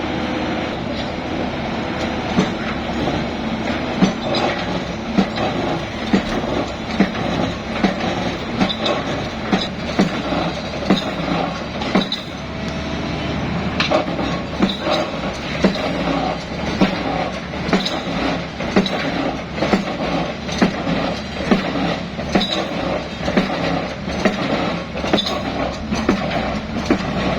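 Excavator engine running steadily, with a series of sharp metallic clanks and knocks, somewhat more than one a second, starting about two seconds in.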